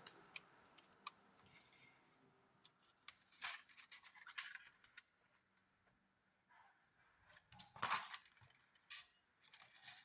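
DVD cases being handled: scattered light plastic clicks and short rustles, the loudest a rustle about eight seconds in.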